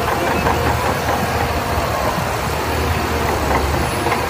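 Shantui crawler bulldozer's diesel engine running steadily with a low rumble as the machine pushes wet sand with its blade.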